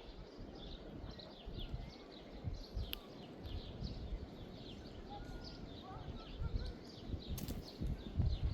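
Small birds chirping over and over in short falling notes, a few a second, with some whistled notes about six seconds in, over a low uneven rumble and a few thumps.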